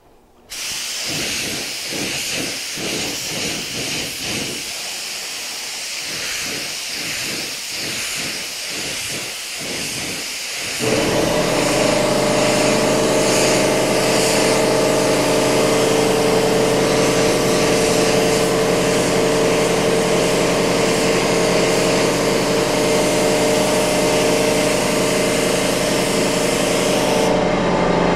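Gravity-feed paint spray gun hissing as base coat is sprayed, the air coming and going in repeated short bursts with each pass. About 11 seconds in, an air compressor's motor starts and runs steadily with a hum, louder than the gun, while the hissing continues.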